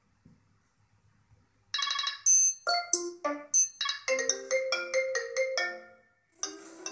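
iPad Air 2 speaker playing short ringtone-style tunes one after another, each cut off as the next begins. First comes a chord with a rapid flutter, then high bell-like notes, then a quick melody of pitched notes that stops suddenly, followed by the start of another tune near the end.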